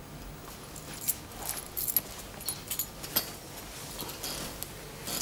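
Scattered light clicks, rustles and small metallic jingles as a person crosses the room and sits down in a chrome-framed armchair.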